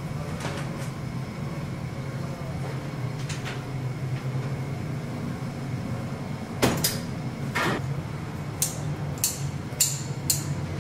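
Steady low hum of kitchen equipment, with two knocks a little past the middle. Near the end come four sharp metallic snips about half a second apart as poultry shears cut through a roast chicken on a steel tray.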